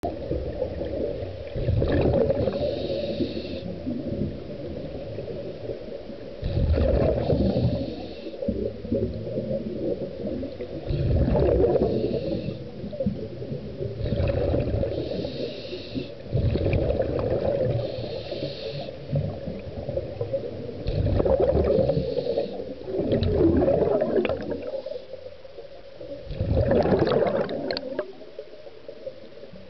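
Scuba diver's regulator breathing heard underwater: about eight gurgling rushes of exhaled air bubbles, one every three to five seconds, over a steady low rumble of the water.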